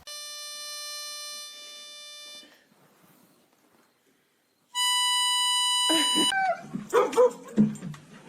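Two long held musical notes with strong overtones, the second higher and louder after a short pause. Then a dog yowls and barks in a quick string of calls near the end.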